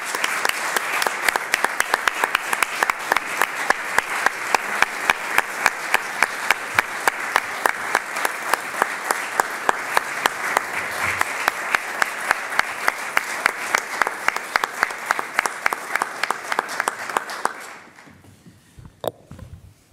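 Audience applauding: dense clapping that stops about eighteen seconds in, followed by a single sharp click.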